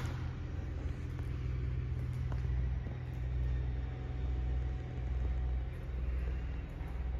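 Peugeot 309 Goodwood's swapped-in 3.0 V6 engine idling: a steady, deep exhaust rumble that swells and eases slightly about once a second.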